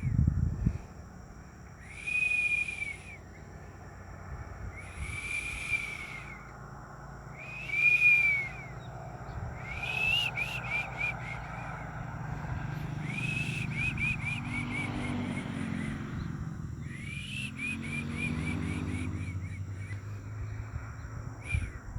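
Unidentified animal calling in high whistled notes: four long, arching notes about two seconds apart, then three bursts of rapid notes in quick succession.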